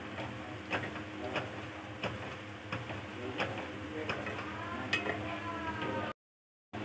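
Chickpea curry being stirred in a pan over the heat, sizzling steadily, with the stirring spoon knocking against the pan every second or so. The sound drops out briefly near the end.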